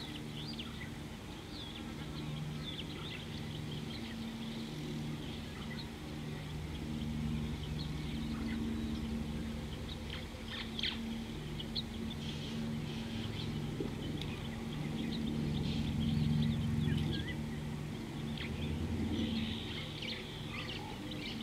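Wild birds chirping and calling, many short notes scattered throughout, over a steady low hum that swells and fades.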